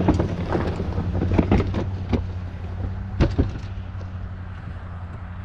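Vehicle engine running steadily, with a series of sharp knocks and clunks over the first few seconds that then stop.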